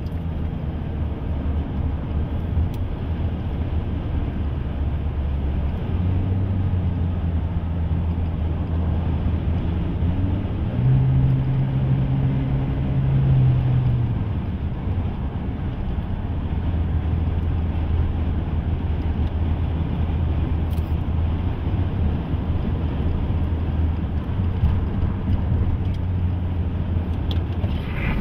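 Engine and road noise inside a moving vehicle's cabin, a steady drone, with the engine note rising and holding higher for a few seconds about ten seconds in.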